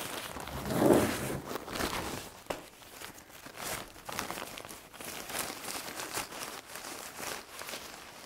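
Polyester carrying bag rustling and crinkling as it is opened and hands work the folded fabric hunting blind inside it; a run of irregular scrapes and rustles, loudest about a second in.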